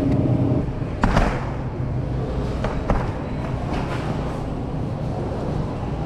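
Supermarket ambience: a steady low hum from refrigerated display cases under a faint even hiss, broken by a few sharp knocks, the loudest about a second in and another near three seconds.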